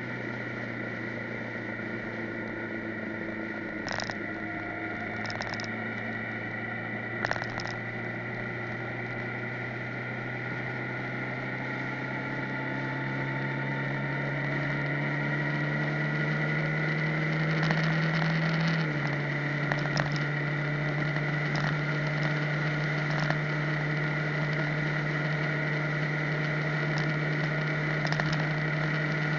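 Motorcycle engine droning at road speed, its pitch and loudness climbing slowly as it speeds up, then stepping down once about two-thirds of the way through. A few short sharp knocks sound in the first eight seconds.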